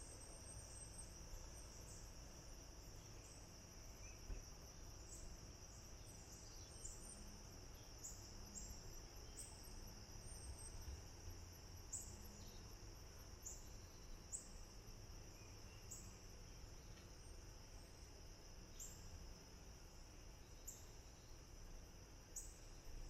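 Faint insects calling: a steady high trill with short, higher chirps repeating about once a second.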